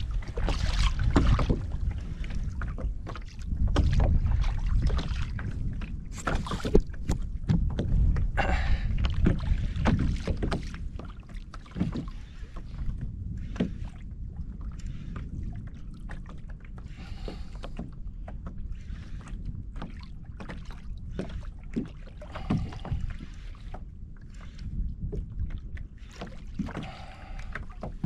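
Sounds from a fishing kayak at sea: a low wind rumble on the microphone and water moving against the hull, louder in the first half, with scattered knocks and clicks from gear and paddle against the kayak.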